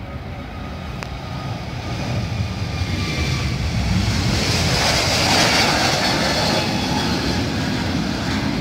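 Airbus A321 airliner's twin jet engines at take-off thrust as it rolls down the runway and lifts off, growing louder to a peak about halfway through with a high hiss over the low rumble, then easing slightly as it climbs away.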